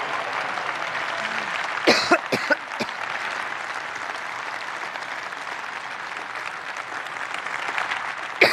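Conference audience applauding steadily. A short run of loud coughs into the microphone comes about two seconds in, and more coughs come right at the end.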